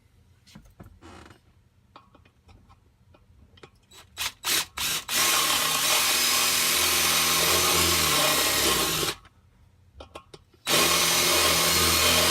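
Handheld electric power tool working on the damaged rubber bushing of an A/C blower wheel: a few quick trigger blips, then a steady run of about four seconds, a short stop, and a second run. Quiet handling clicks come before it.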